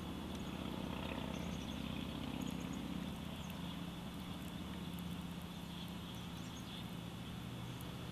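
A steady low rumble with a constant hum in it, with faint, short, high chirps scattered over it.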